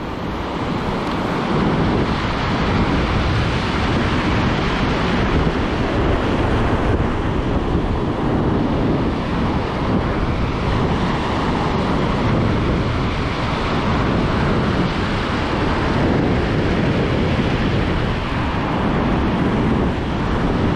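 Ocean surf washing on a beach, with wind buffeting the microphone; a steady noise without distinct events.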